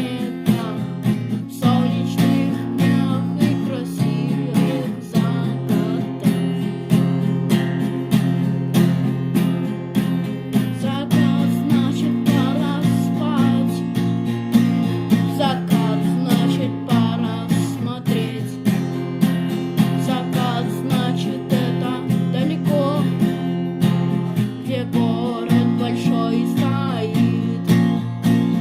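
Music led by acoustic guitar, strummed and plucked in an even rhythm.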